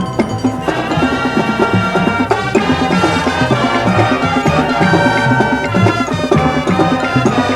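High school marching band playing a Latin-style show chart: full brass and winds sounding sustained chords over a driving rhythm from the drums and percussion.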